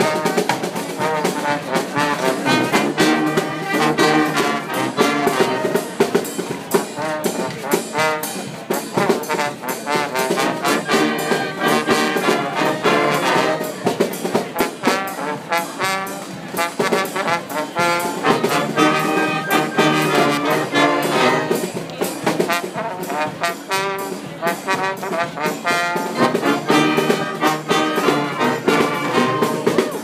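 Brass-led street marching band playing live: trumpets and trombones over sousaphone, woodwinds, accordion and a snare drum, with a steady beat.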